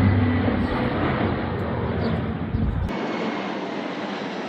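Large military aircraft passing overhead, a loud jet rumble and roar that slowly fades. The deep low rumble drops out abruptly about three seconds in, leaving a thinner rushing noise.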